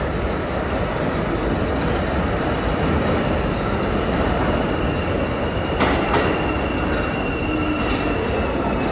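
New York City Subway 1 train of R62A cars approaching the platform through the tunnel: a steady rumble with high, thin wheel squeal on top. Two sharp clicks come close together about six seconds in.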